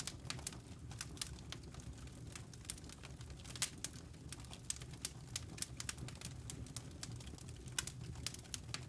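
Wood fire crackling: irregular sharp pops and snaps, a few louder than the rest, over a steady low rumble.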